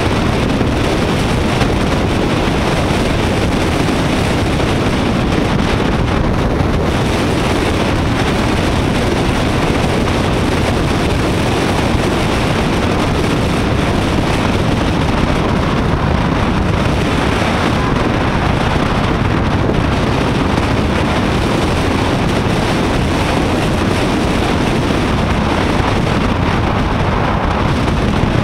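Steady, loud wind noise over an action camera's microphone on a moving motorcycle, mixed with the motorcycle's running and road noise.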